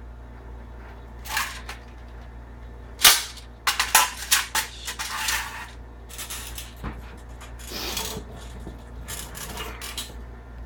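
Metal tools and parts being handled and set down. There is a loud metallic knock about three seconds in, then a quick run of smaller clinks and knocks, and softer handling noise after that.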